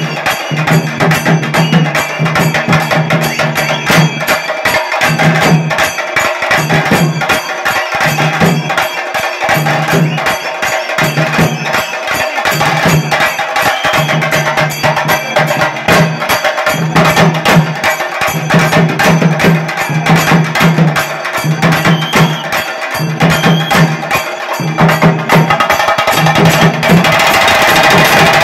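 Drum troupe playing a fast, dense rhythm, with a low steady tone sounding in repeated stretches of about a second. Near the end the sound grows brighter and a little louder.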